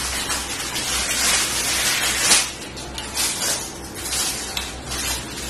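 Fingers mixing and mashing rice on a steel plate, close to the microphone: a continuous, irregular wet mixing noise with a sharper scrape a little past two seconds in.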